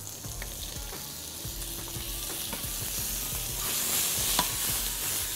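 Marinated prawns sizzling in hot mustard oil in a small frying pan, the hiss growing louder over the first few seconds, with light clicks of a spoon stirring them.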